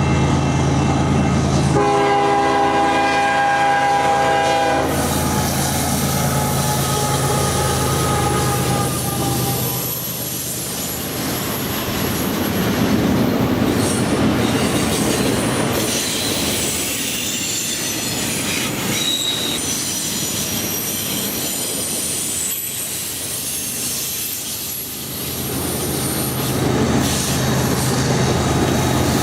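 A freight train going by: diesel locomotive engines running, a horn blast of about three seconds starting about two seconds in, then the rumble of the rail cars with high-pitched wheel squeal, and the low engine hum of another locomotive coming back near the end.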